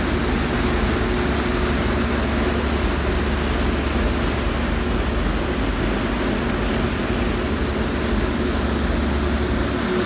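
A passenger ferry's engines and propulsion running hard with a steady low drone and humming tones, over the rush of propeller-churned water.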